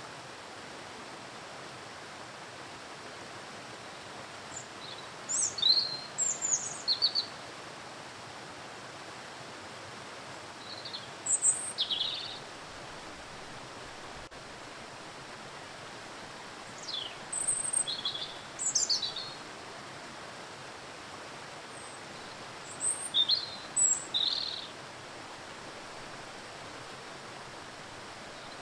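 Steady rush of a waterfall, with small birds chirping in short flurries of quick high notes, four times, roughly every six seconds.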